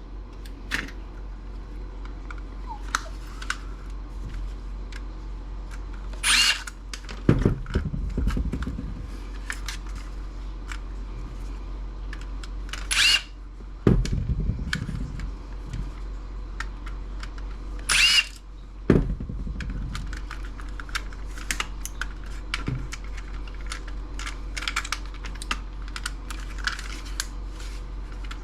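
Power screwdriver whirring in three short runs, backing out screws from the docking station's metal parts, each run followed by a low rattle, with small clicks and knocks of parts being handled in between.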